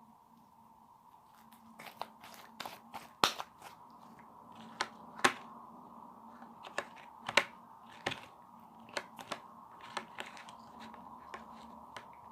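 Slime being kneaded and stretched by hand, giving sharp, irregular clicks and pops, about a dozen, starting about two seconds in.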